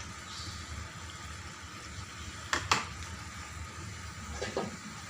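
Chicken and potatoes cooking in a pan, a steady sizzle and bubble. A cooking utensil clicks sharply against the pan twice about two and a half seconds in, and more faintly near the end.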